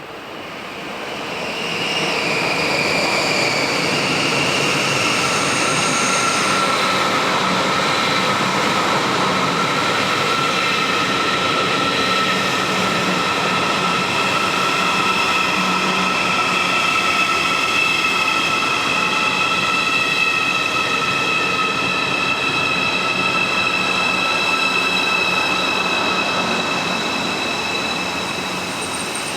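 A train moving through a station, with several high-pitched squealing tones over the running noise. The sound builds over the first two seconds, then holds steady.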